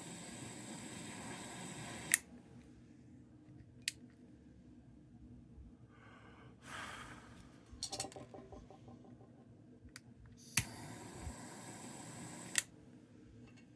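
Handheld gas torch hissing steadily while heating a solder joint, shut off with a sharp click about two seconds in. After a few small clicks and a short puff of noise, it is lit again with a click about ten seconds in, hisses for two seconds, and is shut off with another click.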